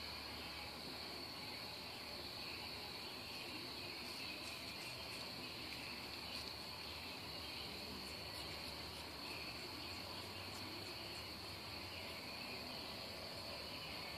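Crickets trilling steadily in the background, one continuous high note, with a few faint ticks midway.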